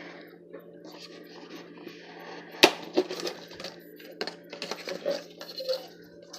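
A sharp knock about two and a half seconds in, then a run of irregular clicks and clatters of small hard objects, over a steady low hum.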